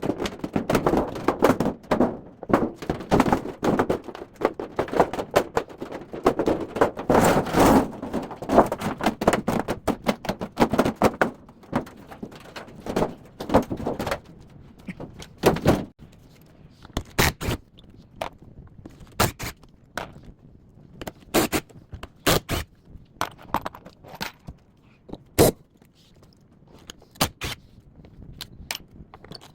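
A top-loading washing machine being taken apart with hand tools: metal and plastic parts knocking, clattering and scraping. The knocks come thick and fast for about the first half, then thin out to separate sharp clicks and taps.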